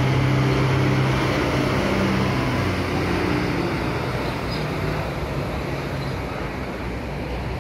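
Intercity bus's diesel engine running as the coach pulls away across wet paving, a steady hum that slowly fades as it moves off, with tyre noise from the wet surface.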